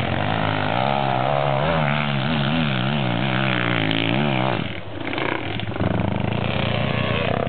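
Pit bike engines revving as the bikes climb a slope under load, the pitch rising and falling over and over with the throttle. The sound dips briefly near the five-second mark, then a steadier engine note carries on.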